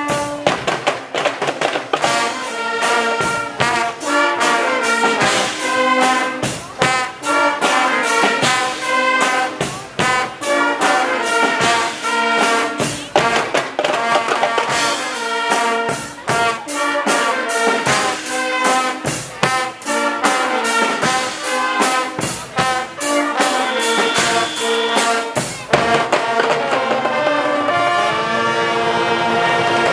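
Guggenmusik brass band playing on the march: trombones, trumpets and sousaphones over a steady beat of drums and cymbals.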